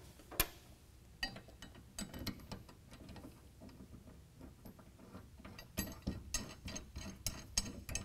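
Light metallic clicks and taps of a steel bracket, nut plate and bolt being handled and a bolt threaded in by hand. There is one sharper click about half a second in and a quicker run of clicks near the end.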